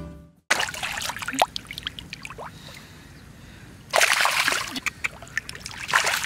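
Water splashing and sloshing in a shallow pond, in two loud spells: one about half a second in and another from about four seconds in, with lighter dribbling and trickling between them.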